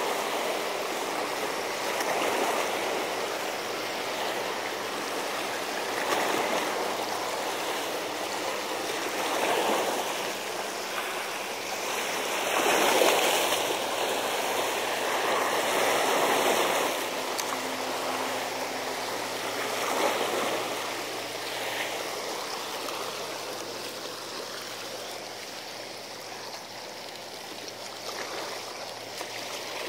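Seawater washing against a seawall, a steady wash that surges and fades every few seconds.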